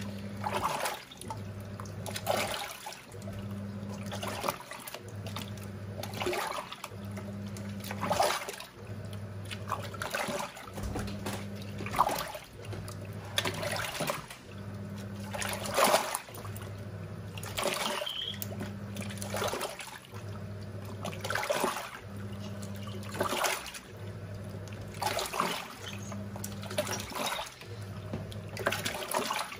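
Giantex EP23113GB top-loading washing machine agitating its load in water. The motor hums in short bursts of about a second, starting again every two seconds or so, and the water swishes with each stroke.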